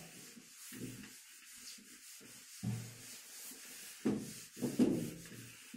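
A handheld eraser rubbing back and forth across a whiteboard, wiping off marker writing, with a few soft bumps among the strokes.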